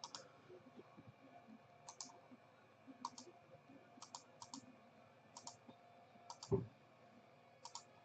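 Faint, scattered sharp clicks, about eight over the stretch, with a soft low bump about six and a half seconds in.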